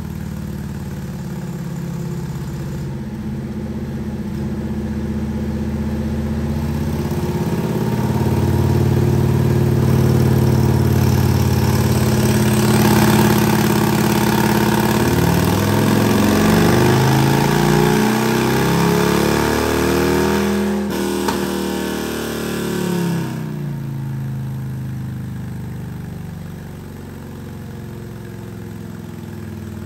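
Harley-Davidson CVO Road Glide's Milwaukee-Eight VVT 121 V-twin, fitted with a Sawicki Speed aftermarket exhaust, making a dyno pull under load. The revs climb steadily, then sweep up quickly to a peak about 20 seconds in. The throttle then closes and the engine falls back to a steady idle.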